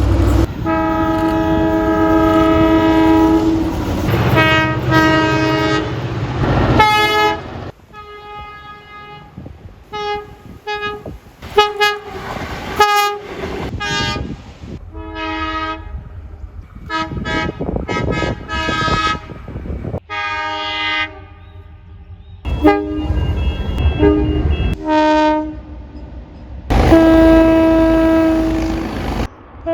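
Train and locomotive air horns sounding one after another, several different horns in turn: long blasts at the start and near the end, with many short toots in between. Low train rumble runs under the first few seconds.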